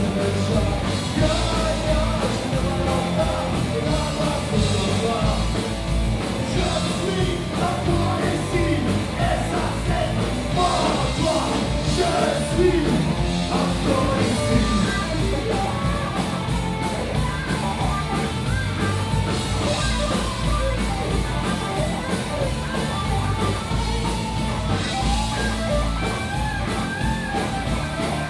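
Live rock band playing loud and without a break: electric guitars, bass and drums with a singer's vocals over them, heard through the room's PA.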